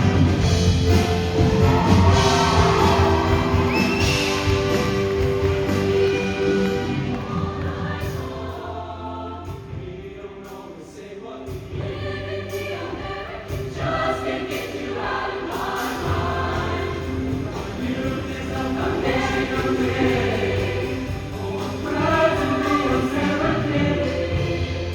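A show choir singing in full ensemble with musical accompaniment, easing into a softer passage about ten seconds in and then building again.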